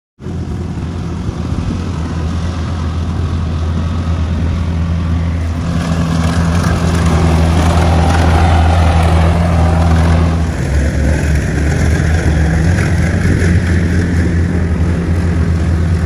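Kubota rice combine harvester's diesel engine and threshing machinery running steadily while cutting and threshing rice, a loud low hum with mechanical clatter above it; the engine note shifts slightly about ten seconds in.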